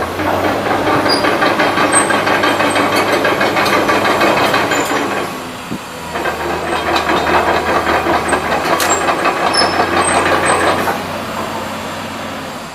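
Komatsu PC200-8 hydraulic excavator working under load in two stretches of about five seconds each, dropping back briefly in between and easing off near the end. The load carries a fast, even pulsing with sharp metallic clicks on top.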